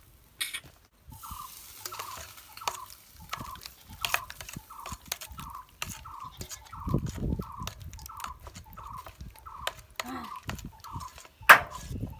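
A steel spoon stirring a thick mixture in a steel bowl, scraping and clicking against the metal, with a couple of sharp knocks near the end. Behind it, a bird repeats one short call about three times a second.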